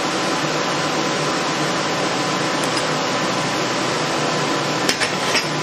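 Steady, even hiss like a fan running, with a faint constant tone underneath. A couple of light metal clicks near the end.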